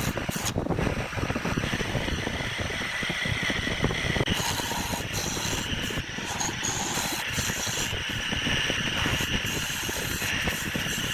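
A power woodworking machine running steadily, with a rough, hissing cutting noise.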